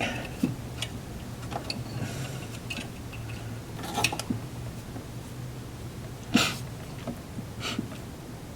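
Scattered clicks and knocks of parts and hand tools being handled while working on a car in a cramped space, the loudest about six seconds in, over a steady low hum.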